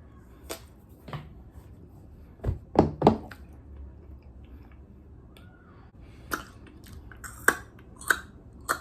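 Close-up chewing of a big mouthful of food: scattered wet mouth clicks and smacks, with a loud pair of clicks about three seconds in and a run of louder ones in the last few seconds.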